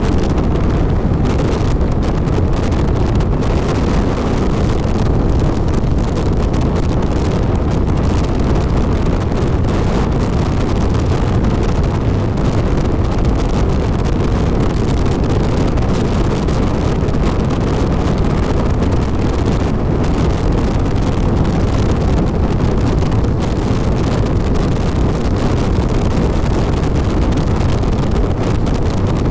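Loud, steady rush of wind over the microphone of a Hero XPulse 200 motorcycle riding at speed, with the engine's drone mixed in beneath.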